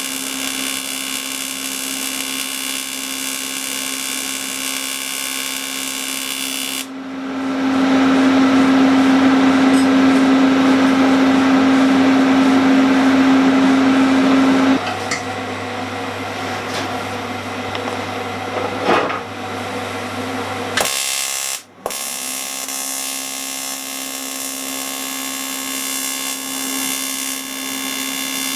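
Steady hiss of a gas brazing torch with a low hum, bronze-brazing a broken cast iron gear tooth. The sound changes abruptly a few times and drops out briefly about 22 seconds in.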